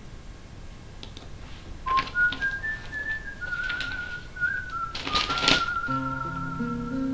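A whistled tune, a single clear melody stepping up and down, starts about two seconds in. About six seconds in, low sustained accompaniment notes join it. A couple of short rustling noises come near the start of the tune and again about five seconds in.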